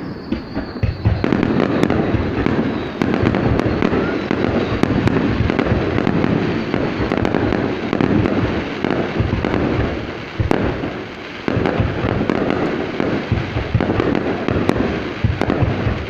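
Fireworks display: a dense, continuous barrage of shells going off, with sharp bangs every few seconds over a constant rumble of bursts and crackle.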